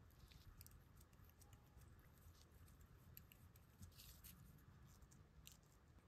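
Near silence, with a few faint, light clicks of gloved fingers handling a pocket watch's enamel dial and movement as the dial is worked loose.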